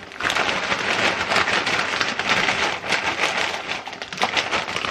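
Potato chips poured from a crinkly bag into a bowl: a dense, continuous rattle of dry crisps, with the bag crinkling.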